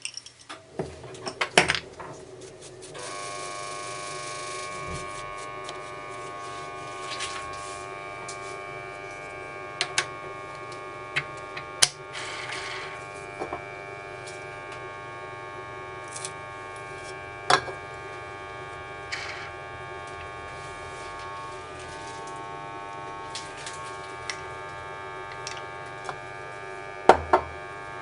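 Small electric machine-tool motor, likely the bench drill, switched on about three seconds in and running with a steady whine. Sharp metallic knocks and clicks occur now and then over it.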